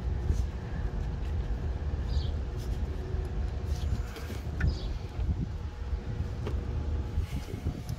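Steady low rumble with a faint steady hum, and a few small ticks and scrapes as a gloved hand works among hoses in a car's engine bay.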